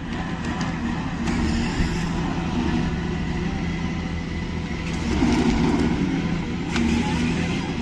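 Heavy machine's engine running steadily, a low rumble with broad mechanical noise and a sharp knock near the end.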